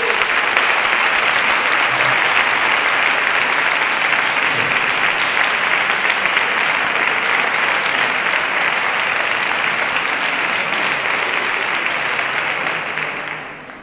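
A large crowd applauding, dense and steady, then dying away near the end.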